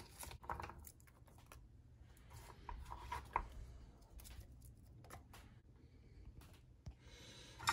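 Faint handling sounds of sliced onions being scooped off a wooden cutting board and dropped by hand into a slow cooker pot: scattered light taps and rustles, with a sharper knock near the end.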